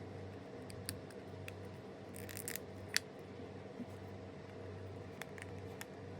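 Small handling sounds of blind-box packaging and plastic figures: scattered light clicks and taps, a brief crinkle about two seconds in, and a sharper click about three seconds in, over a steady low hum.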